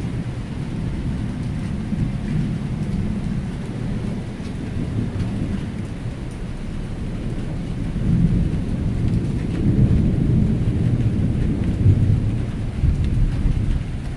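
Thunder rumbling continuously under falling rain, the rumble growing louder from about eight seconds in.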